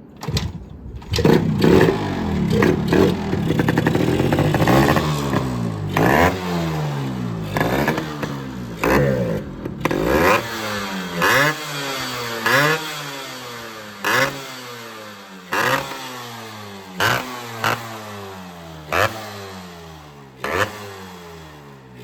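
Yamaha RX two-stroke single-cylinder motorcycle engine, converted from RX100 to RX135 with a ported cylinder, starting about a second in and then revved hard again and again. In the second half it settles into sharp throttle blips about every one and a half seconds. Its loud, crackly exhaust is what the porting and conversion give it.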